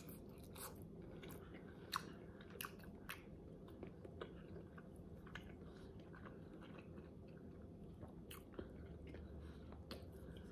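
A person chewing a forkful of tender stuffed bell pepper, quietly and with the mouth closed. Small sharp clicks come here and there through the chewing.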